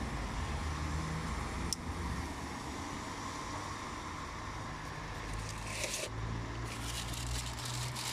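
Steady low rumble of a motor vehicle in the background, with one sharp click about two seconds in and rustling and light clicks in the last couple of seconds.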